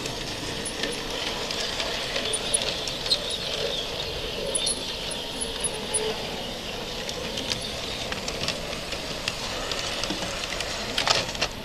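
Garden-scale model steam trains running on their track: a steady hiss with scattered small clicks and ticks, and a brief louder clatter near the end.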